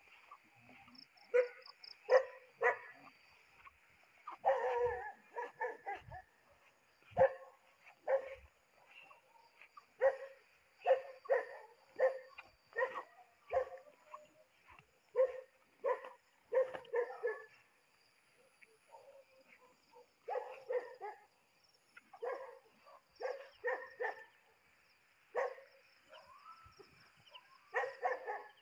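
An animal gives repeated short, barking calls, singly or in quick groups of two or three, over a steady high-pitched chorus of night insects or frogs. A few soft knocks come in the first few seconds.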